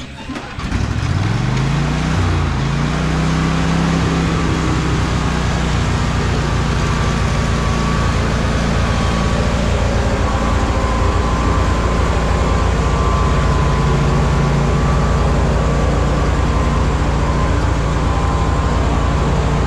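Riding lawn mower engine coming up to speed about a second in, its pitch rising, then running steadily at a constant speed.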